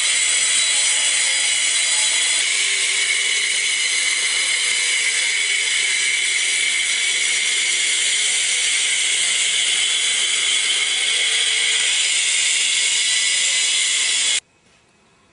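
Eibenstock EMF 150 twin-blade wall chaser cutting a groove into a wall, running steadily with a high whine, until it stops abruptly near the end.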